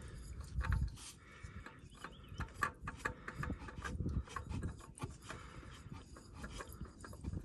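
A new spin-on oil filter being screwed on by hand onto its threaded mount: irregular rubbing and scraping with light clicks as it is turned.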